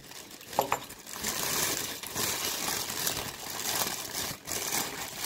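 Brown honeycomb kraft packing paper rustling and crinkling as it is pulled apart to unwrap an item. A brief sharp sound comes about half a second in.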